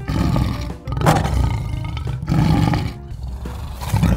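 Several dinosaur roars in a row, rough and loud, over faint background music.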